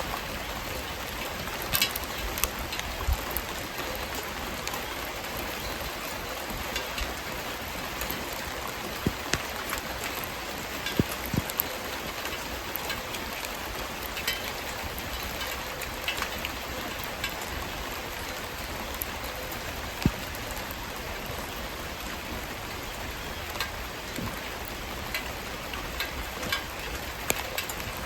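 Wood-fire barbecue crackling and sizzling: a steady hiss with scattered sharp pops and snaps, a few louder than the rest.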